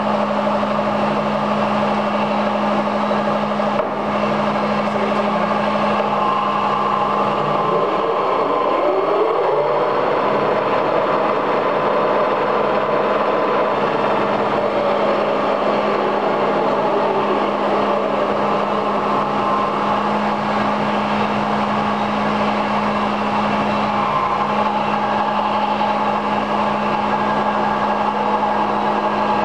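Tarnow 22 x 105 engine lathe running under power: its 10 HP main motor and geared headstock give a steady hum with gear whine. About eight seconds in, a whine rises in pitch as the spindle speeds up, then holds steady.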